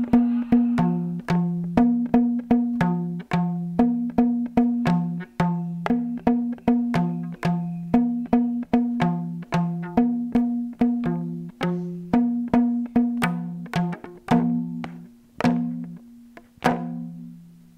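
Two rubber bands stretched around a Wheat Thins cardboard box, lifted on a pen as a bridge, plucked in a rhythmic beat pattern that alternates a higher and a lower twangy note. Each pluck rings briefly; the plucks thin out near the end.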